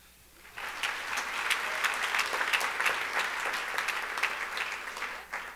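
Audience clapping, starting about half a second in and stopping abruptly shortly before the end.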